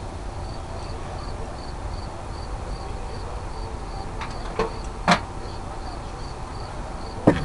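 A cricket chirping steadily, about three short high chirps a second, over a low steady background rumble. Two sharp knocks come about five and seven seconds in, the second the loudest.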